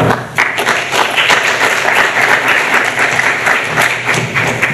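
Audience applauding: many hands clapping in a dense, steady patter that starts suddenly, right after the end of a talk.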